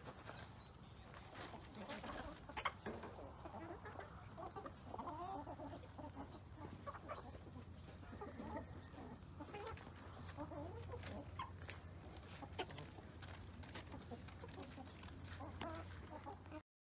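Chickens clucking quietly, many short scattered calls with small clicks among them, over a low steady hum. The sound cuts off abruptly near the end.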